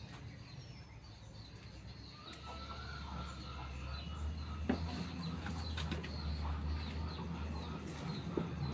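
Outdoor ambience of small birds chirping again and again, with a low steady rumble coming in about two seconds in and two sharp clicks, one near the middle and one near the end.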